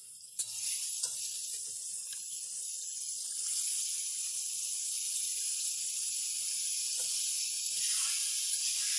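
Raw chicken pieces frying in hot oil in a steel karahi: a steady, high sizzle with fine crackling.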